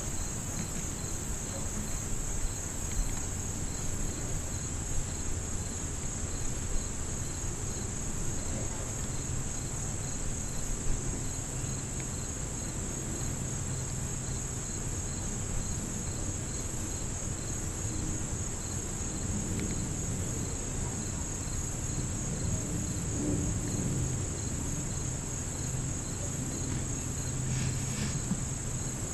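A chorus of insects, crickets or the like, keeping up one steady, unbroken high trill, with a fainter pulsing chirp beneath it.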